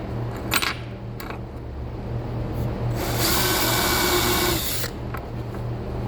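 Power drill running for about two seconds, starting about halfway in, boring a hole through an old leather belt for a rivet.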